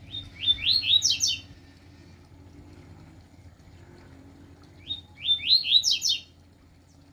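A caged male songbird sings two short phrases about four seconds apart, each a quick run of bright up-sweeping notes lasting just over a second.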